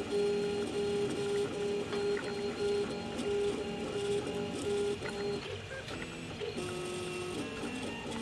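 Prusa Mendel RepRap 3D printer running a print, its stepper motors singing in short steady tones. For about five seconds the tones repeat at one pitch, about three a second, then they turn into shorter notes that jump between several pitches as the moves change.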